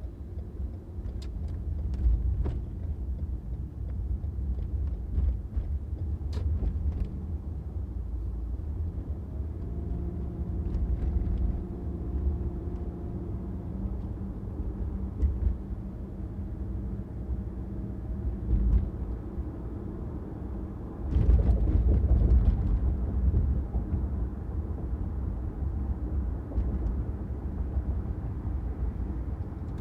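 A car driving on city streets: a steady low rumble of engine and tyres on the road, with a few faint clicks early on and a louder swell about two-thirds of the way through.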